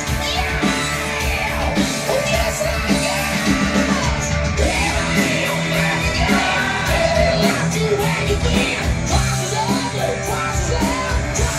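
Rock song with singing over a full band, played back from a cassette on a Pioneer CT-F500 tape deck.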